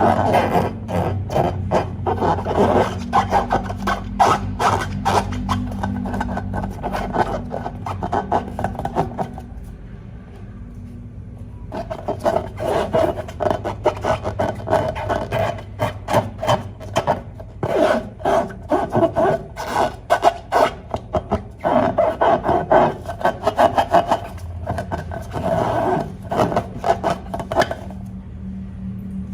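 Slime being stirred and squished by hand: a dense, continuous run of small crackles and sticky rubbing that dies down briefly about ten seconds in, then starts again.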